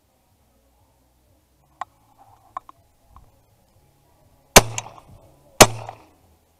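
Two shotgun shots about a second apart, from a Browning 30-inch multi-choke game gun firing steel-shot cartridges at woodpigeons coming in to decoys.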